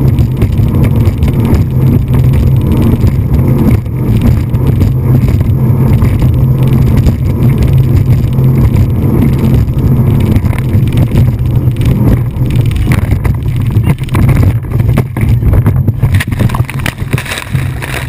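Speedboat running fast: a steady, loud engine drone with wind rushing over the microphone. In the last few seconds the sound grows rougher and more uneven as the boat hits waves and spray comes over the cockpit.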